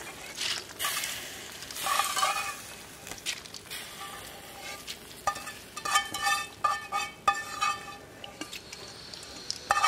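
A spatula stirring and scraping in a stainless steel pan of rice and broth, with short clicks and knocks against the metal and a soft sizzle from the hot liquid.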